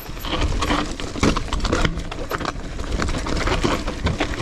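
Mountain bike clattering down a rocky trail: rapid, irregular knocks and rattles from the wheels, chain and frame over stones, with a steady low wind rumble on the microphone.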